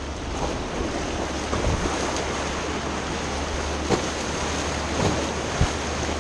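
Rushing whitewater of a river rapid, with wind buffeting the microphone. A few short thumps stand out in the second half.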